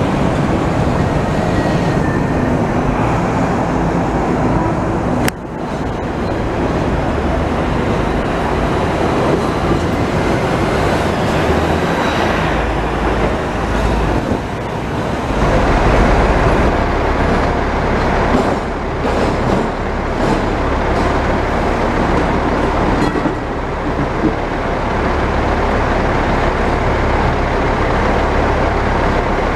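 Busy city street traffic: buses and cars running alongside Hong Kong's double-deck electric trams on street tracks, a steady din of engines and road noise. There is an abrupt break about five seconds in, and a deeper low hum from midway on.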